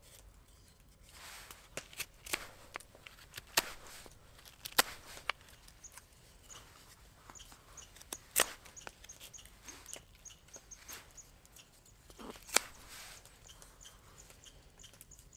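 Knife whittling a small wooden egg flipper: irregular sharp cuts and short scrapes of the blade along the wood, several louder snicks spaced a few seconds apart.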